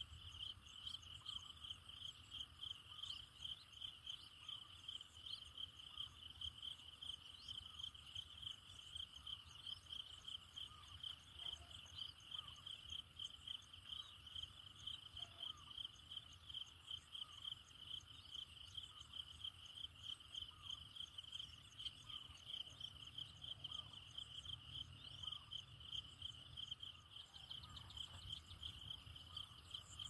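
Faint insect chirping: a steady high pulsing buzz repeating several times a second, over a low rumble.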